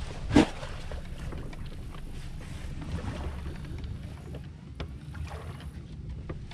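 Low steady rumble of wind and water noise on a boat deck's microphone, with one brief loud thump about half a second in.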